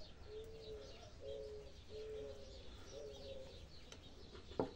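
A dove cooing faintly: about four low, even coos in a row. A sharp click sounds near the end.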